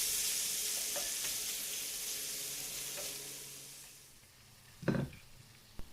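Chicken in soy sauce sizzling in a hot pan, the sizzle fading away over about four seconds. A single dull knock about five seconds in and a short click near the end.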